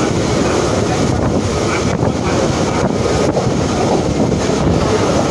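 Heavy wind buffeting the microphone at the open door of a moving Mumbai local train, over the steady rumble of the train running.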